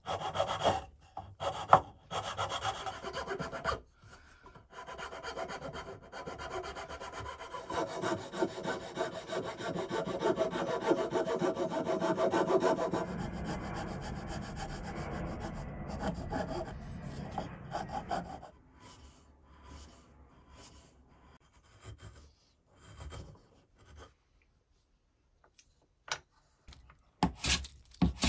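Hand tools shaping wood: mostly a rasp scraping back and forth over a carved wooden toy plane body, with short paring strokes at the start. A few faint scrapes follow, and near the end a hand plane takes loud shaving strokes.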